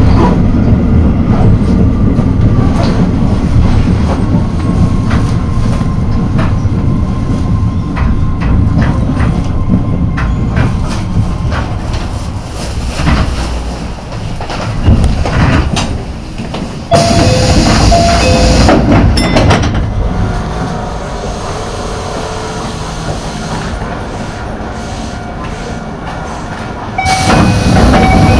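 Keio Line electric train running, heard from the cab: a steady low rumble with wheels clicking over rail joints, growing quieter as it slows. About two-thirds through, and again near the end, a level-crossing warning bell rings loudly for a couple of seconds.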